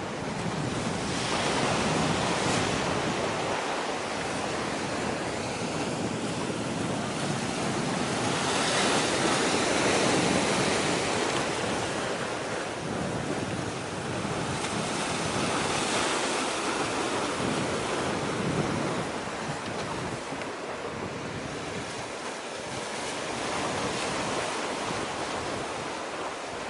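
Sea waves washing ashore with wind buffeting the microphone, a rushing noise that swells and fades every several seconds.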